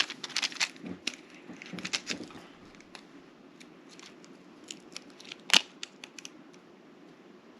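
Stiff plastic blister packaging of memory cards crackling and clicking as hands try to pry it open, hard to open. A dense run of crackles in the first couple of seconds, then scattered clicks and one sharp snap about five and a half seconds in.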